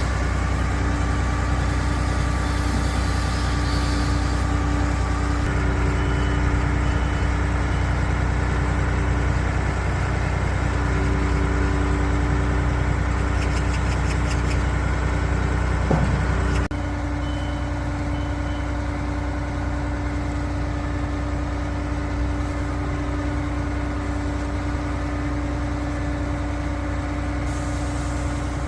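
Junjin 50 m concrete pump truck's diesel engine running steadily with a constant hum. Short high beeps come in a few quick groups, about six seconds in and again after the sound shifts abruptly about seventeen seconds in.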